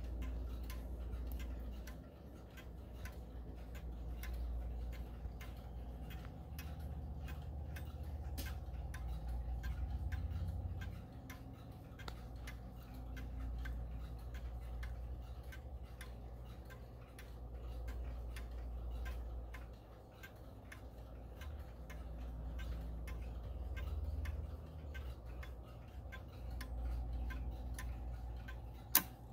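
Steady ticking of a Howard Miller Jennison triple-chime wall clock's pendulum movement over a low background rumble. Near the end, one sharper, louder click comes as the hands reach the hour, just before the chime.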